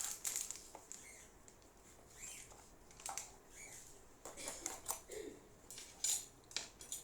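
Scattered light clicks, taps and scratchy rustles of small plastic containers and utensils being handled and set down.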